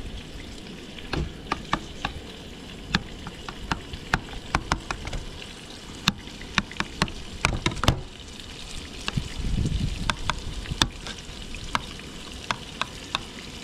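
Food sizzling over heat: a steady hiss broken by many irregular sharp pops and crackles, with some low handling noise about two-thirds of the way through.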